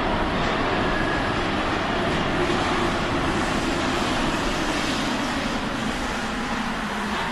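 Paris Métro train pulling into the station and slowing, a steady rumble with a low hum that drops slightly in pitch over the last few seconds.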